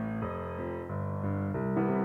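Piano music: slow, held chords and notes changing about every half second to second.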